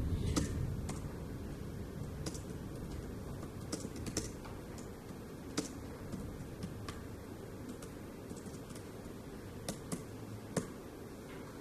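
Typing on a tablet's keyboard: slow, irregular keystroke clicks, a few of them louder, over a steady low background noise.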